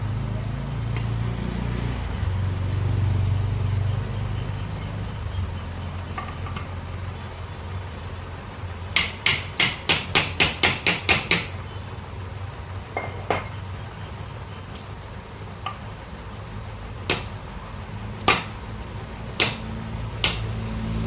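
Hammer striking metal on a moped engine during assembly: a quick run of about ten taps, about four a second, then single taps a second or more apart.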